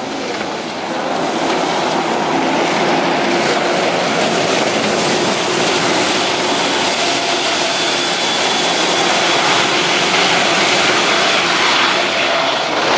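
Main battle tank driving fast over a dirt course: steady loud engine and track noise, with a faint thin high whine through the middle.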